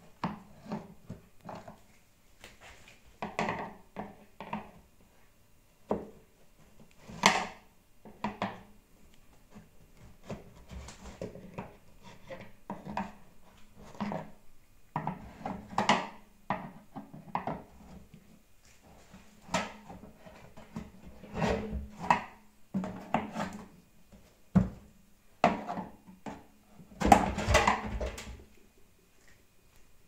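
Screwdriver prying apart a two-part plastic washing-machine tub: irregular knocks, clicks and scrapes of plastic, with a longer, louder burst of rattling near the end.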